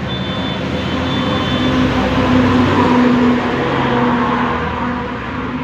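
Motor vehicle engine running nearby, growing louder to a peak about halfway through and then easing off.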